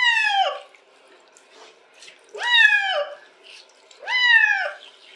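Wet cat meowing loudly three times, each a long call that rises and then falls, while it is being showered. The cat is protesting the wash. Faint spray of water runs between the calls.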